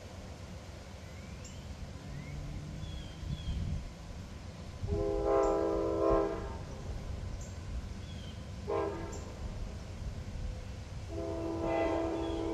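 Amtrak passenger locomotive's multi-chime air horn blowing as it approaches, quilled by the engineer: a long blast about five seconds in, a short blast near nine seconds, then another long blast starting about eleven seconds in.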